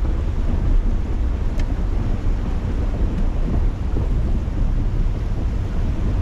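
Wind buffeting the microphone: a steady low rumble that swells and dips.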